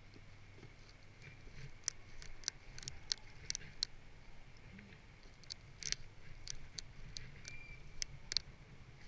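Snowboard binding ratchet straps being tightened by hand: a run of irregular, sharp clicks.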